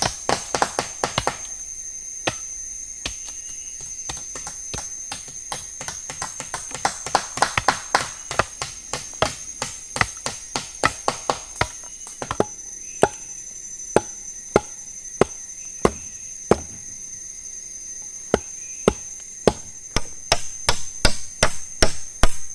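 Wood being chopped with a blade: dozens of sharp, irregular strokes, coming in quick runs near the start and again near the end. A steady high-pitched insect drone sounds behind them.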